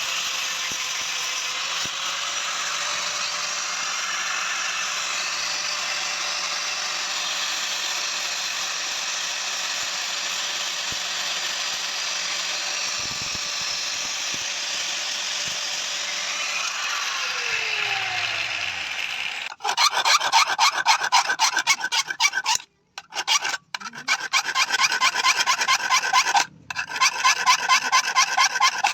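A power tool runs steadily against steel with a hissing grind, then spins down with a falling pitch about two-thirds of the way in. Rapid hand-filing strokes on the steel follow, in short runs broken by brief pauses.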